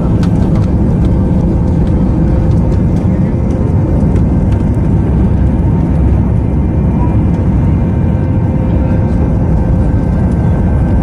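Jet engines of an Airbus A320-family airliner at takeoff thrust, heard inside the cabin by the wing: a loud, steady rumble with a few faint whining tones held over it, as the aircraft lifts off and climbs.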